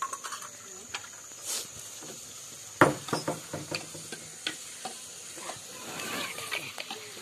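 Metal spatula stirring and scraping in an iron kadai over a wood fire, with scattered clinks against the pan and a light sizzle. The loudest knock comes a little under three seconds in, followed by a quick run of clinks. The chilli powder just added is being stirred into the frying onion and tomato.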